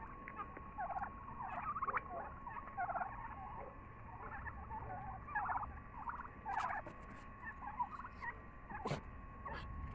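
A flock of young turkeys giving many short, soft chattering calls that overlap and come in scattered bursts. A few sharp clicks sound in the second half.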